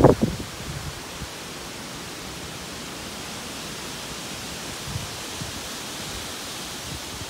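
Strong tropical-storm wind rushing steadily through the tree canopy. A brief burst of wind buffets the microphone at the very start.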